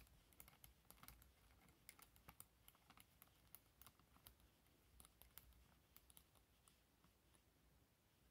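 Faint, scattered small clicks and taps, several a second, of fingers working small metal parts into the front of a Walther CP88 CO2 air pistol.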